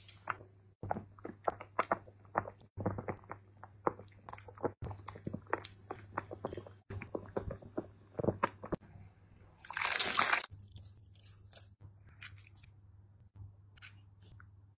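Irregular sharp crackling clicks and pops, dense at first and thinning out, with a brief hiss about ten seconds in, over a steady low hum.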